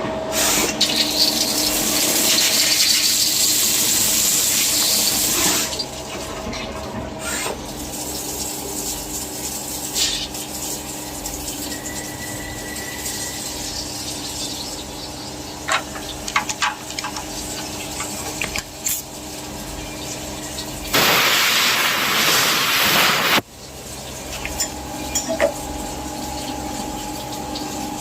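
CNC machine running with a steady mechanical hum. A loud hissing spray, like coolant or air jetting, lasts about five seconds at the start and comes again for about two seconds near the end, with scattered clicks in between.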